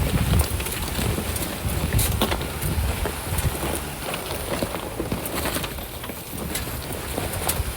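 Off-road vehicle moving slowly over a rough trail: a low engine rumble with irregular knocks and clatters of the vehicle jolting over rocks.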